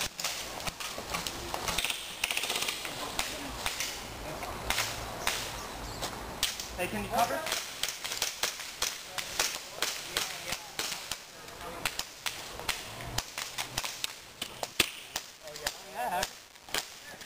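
Airsoft pistols firing: many sharp pops scattered irregularly, some close and some farther off. Faint shouts come in about seven seconds in and again near the end.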